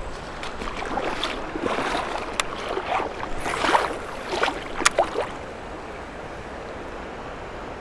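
River water splashing and sloshing close by for about five seconds, with a few sharp clicks among it, then the steady rush of the river current.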